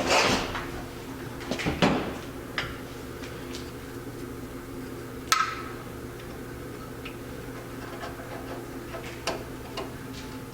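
Small metal carburetor parts and hand tools clinking and tapping on a workbench during disassembly of a single-barrel carburetor, with one sharp ringing metallic clink about five seconds in. A steady low hum runs underneath.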